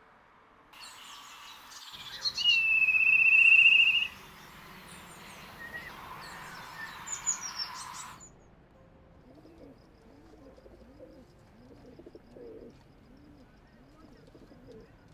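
Small birds chirping, with one loud, long whistled note about two to four seconds in. At about eight seconds the sound cuts to pigeons cooing low and repeatedly, a little over one coo a second.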